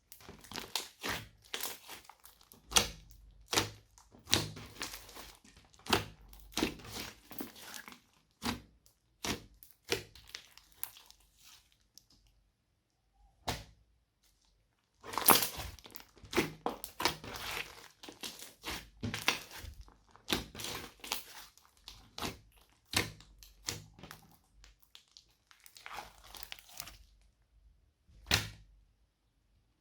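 Slime being squished, stretched and kneaded by hand, giving dense irregular clicks and crackles in bursts, with a pause of a couple of seconds near the middle.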